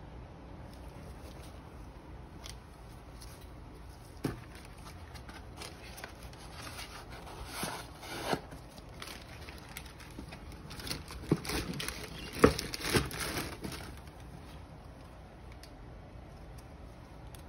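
Tissue paper and a cardboard shoe box rustling and crinkling as they are handled, with scattered sharp clicks and taps, busiest and loudest through the middle.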